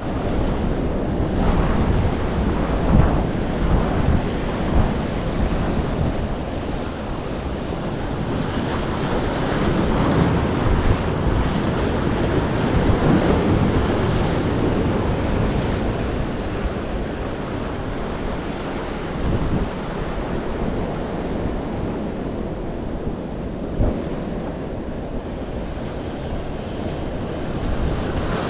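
Sea waves breaking and washing over the boulders of a rocky breakwater, the surf swelling and easing. Wind buffets the microphone.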